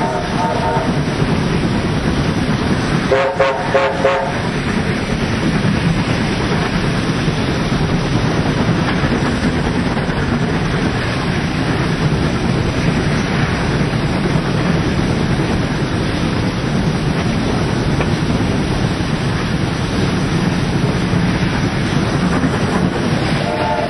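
Steam trains running side by side at speed: a steady rumble of wheels and exhaust. A short multi-note train whistle blast sounds at the start, another about three seconds in, and a third begins just before the end.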